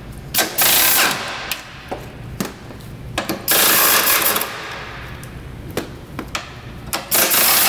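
Pneumatic impact wrench spinning off 14 mm bolts in three short bursts, each under a second long, about three seconds apart. Sharp clicks of the socket and metal parts being handled come in between.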